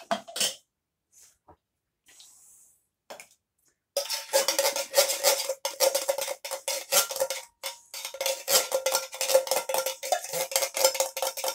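Metal spoon scraping around the inside of a tin can to get the last of the soup out: rapid scrapes and knocks, with the can ringing at one steady pitch. It starts about four seconds in, after a few soft clicks.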